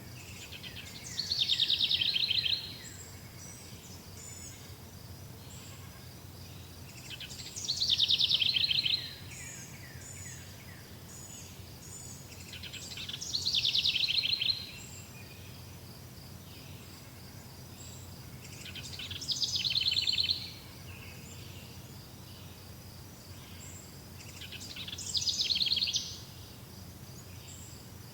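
A songbird repeating a short, fast trilled song five times, about every six seconds, over a steady background of insect chirring.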